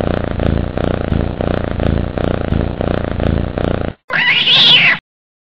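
Loud, evenly pulsing animal-like rumbling for about four seconds, then after a short break a brief, brighter call that rises and falls and cuts off suddenly.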